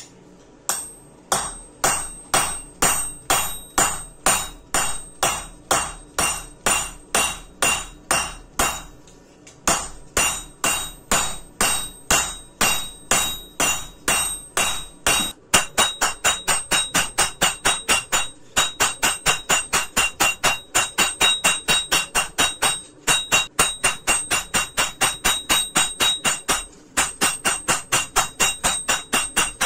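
Hammer blows forging a steel gouge blank on an anvil, in a steady rhythm of about two and a half strikes a second with a short pause. About halfway through the strikes quicken to about four a second, each with a clear metallic ring, broken by a few brief pauses.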